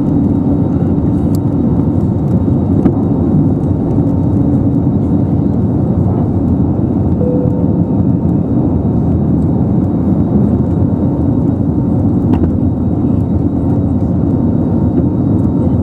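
Steady low cabin rumble inside an Airbus A320neo airliner, with a faint hum and a few small clicks.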